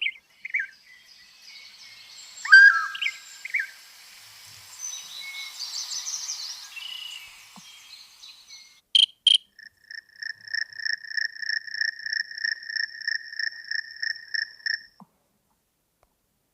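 Google Pixel 9 ringtones playing from the phone's speaker. First a ringtone of bird-like chirps and trills, then, after two sharp clicks, a high electronic beep pulsing about four times a second that stops suddenly.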